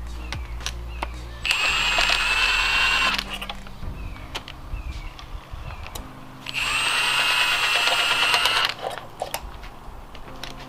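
Cordless impact wrench spinning out cylinder head bolts that have already been broken loose. It runs twice, each time for about two seconds, as a steady whine that winds up at the start and down at the end. Light metal clinks come between the runs.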